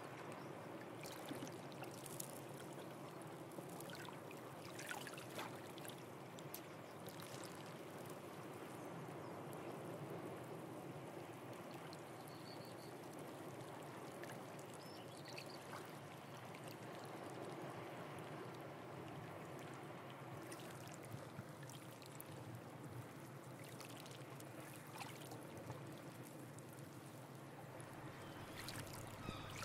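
Calm sea water lapping and trickling among exposed shoreline rocks: a soft, steady water noise with small splashes and drips.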